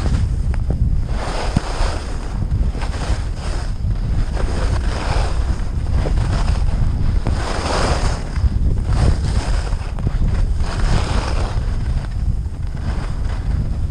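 Blizzard wind buffeting the microphone with a heavy low rumble while skiing downhill, overlaid by repeated swishing surges every second or two, typical of skis turning on snow.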